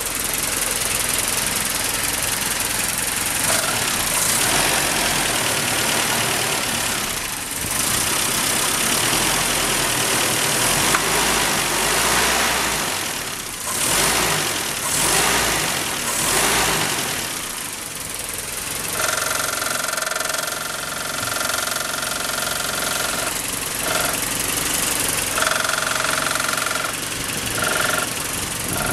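Land Rover Series 3's carburetted petrol engine running, with the throttle opened by hand at the carburettor linkage about halfway through so that the revs rise and fall several times. In the second half a steady high tone comes and goes several times over the engine.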